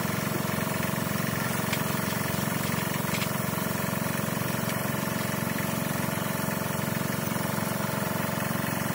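Hino truck diesel engine idling steadily, with an even, fast pulsing beat.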